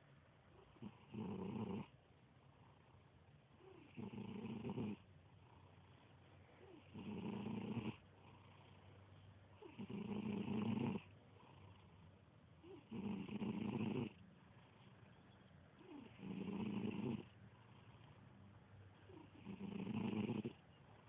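A kitten snoring in its sleep: seven snores about a second long each, coming regularly about every three seconds.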